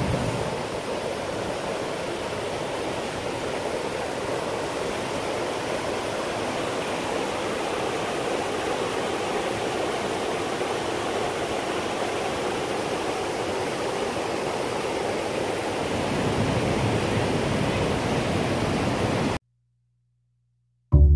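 Steady rush of a waterfall, with water pouring over rock ledges into pools. It cuts off abruptly about a second and a half before the end, and music begins right at the end.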